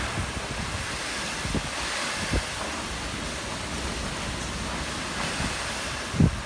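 Typhoon wind blowing steadily, with gusts buffeting the microphone in a low rumble and a few short thumps.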